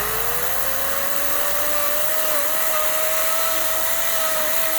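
Chainsaw running at full throttle cutting through a log, a high whine that climbs as it spins up and then holds steady, with a brief dip in pitch about two seconds in.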